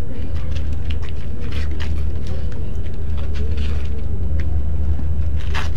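A steady low rumble runs throughout, with scattered scuffs and rustles as people kneel on a gritty concrete floor, and a louder rustle near the end.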